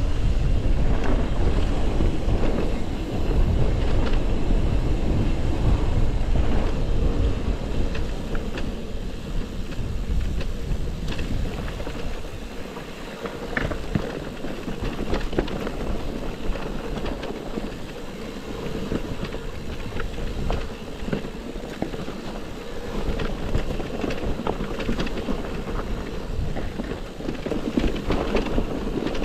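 An electric mountain bike ridden over rough, stony trail: wind rumbling on the microphone, tyres crunching and the bike rattling with many small knocks. The wind rumble is heaviest in the first several seconds, then eases.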